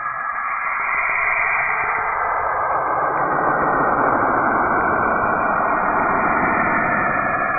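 Space 'sound' clip: a steady, noisy whooshing hiss like radio static, with no tones or beat. About two to three seconds in it swells louder and deepens.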